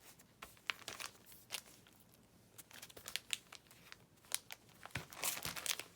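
Paper craft packs and their packaging being handled: irregular crinkling and crackling, busiest near the end.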